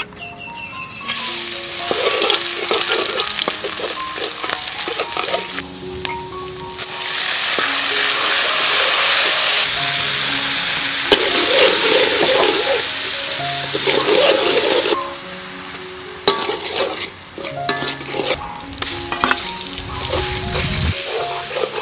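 Chopped aromatics sizzling in hot oil in a metal wok, the sizzle loud and steady for much of the time. Later it drops and a metal spatula scrapes and clicks against the wok, stirring in minced filling. Soft background music plays throughout.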